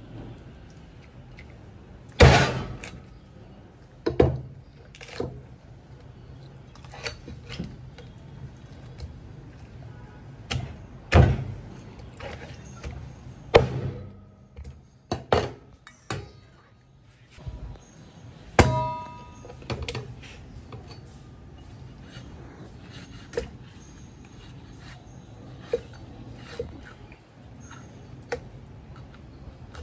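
Cleaver chopping through a porcupine puffer fish head on a thick cutting board: irregular heavy chops, the loudest about two seconds in. One stroke near the middle rings like metal.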